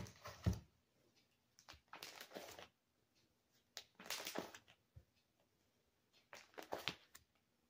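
Pages of a ring binder being turned over by hand, rustling in four short bursts, with a light knock against the counter near the start.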